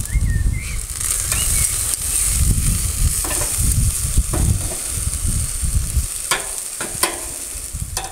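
Olive-oiled aubergine slices sizzling on a hot charcoal barbecue grill, with a low rumble under it for the first six seconds. A couple of sharp clicks of metal tongs on the grate come near the end.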